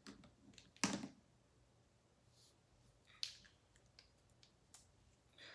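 A few light plastic clicks and taps of felt-tip markers being handled and picked up, the sharpest about a second in.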